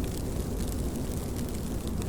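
Steady rain falling, a dense patter of drop impacts over a deep rumbling wash.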